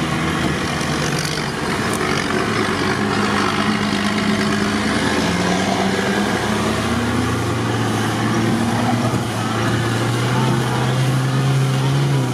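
Off-road vehicle engine running, its revs rising and falling slowly, louder in the last few seconds.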